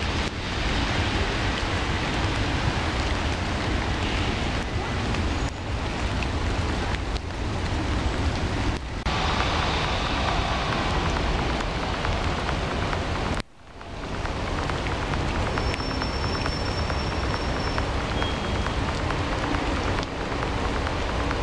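Steady rain falling on a flooded, fast-running river, a continuous hiss over a low rumble. The sound drops out for a moment about two-thirds of the way through, then returns.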